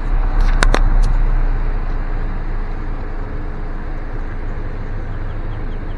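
Steady low rumble of a car rolling slowly, heard from inside the cabin. A few sharp clicks come about half a second to a second in.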